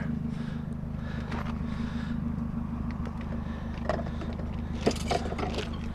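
A car engine idling steadily, with a few short knocks and clunks about four and five seconds in.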